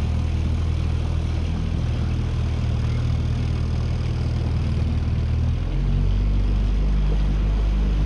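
Small outboard motor on a dinghy running at a steady speed, a low hum that drops to a deeper note a little over five seconds in.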